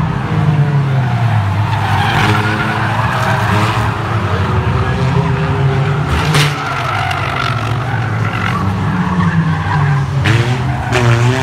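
Several banger-racing cars' engines running and revving together, rising and falling in pitch, with tyres skidding on the dirt track. There is a sharp knock about six seconds in.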